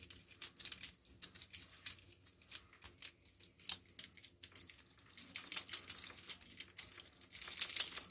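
Rapid, irregular light metallic clicking and scratching as a rake pick is worked in and out of a small padlock's keyway, with the stacked steel handcuffs on the wrists clinking; busier and louder near the end.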